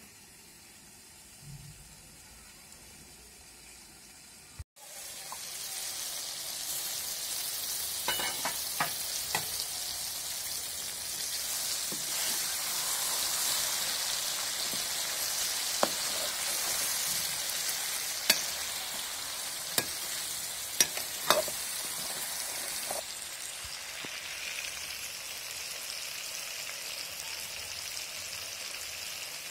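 Chicken and whole tomatoes frying in oil in an aluminium pot: a steady sizzle, quieter for the first few seconds while the lid is on, then loud once the pot is open. A few sharp metal clinks from a ladle and tongs against the pot come through the sizzle.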